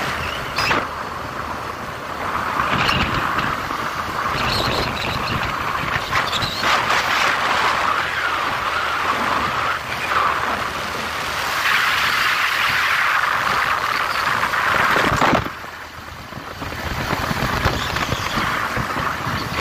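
Motorcycle on the move: a steady rush of wind and road noise on the microphone. It dips briefly about three-quarters of the way through.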